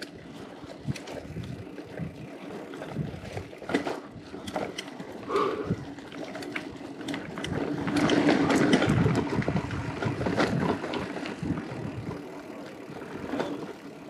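Mountain bike being ridden: tyre noise and wind on the microphone, with scattered clicks, swelling louder about eight seconds in.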